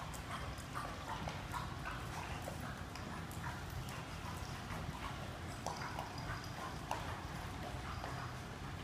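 A pack of dogs eating from bowls on a tiled floor: many irregular small clicks and crunches, with a steady low hum underneath.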